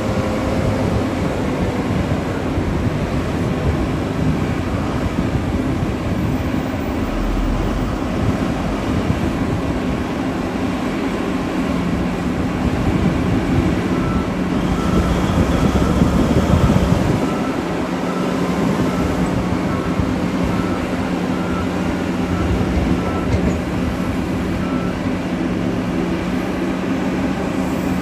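Heavy mining machinery at work: large diesel engines of an excavator and haul truck running with a steady drone and a few held low tones, growing louder for a couple of seconds around the middle.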